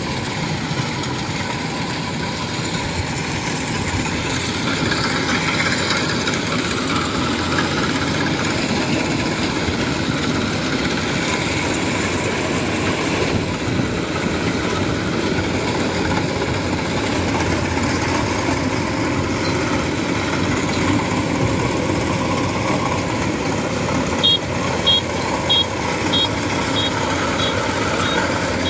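Kubota DC-93 rice combine harvester running steadily under load as it cuts and threshes rice, its diesel engine and threshing mechanism making a constant machine noise. Near the end a run of about seven short high chirps sounds over it.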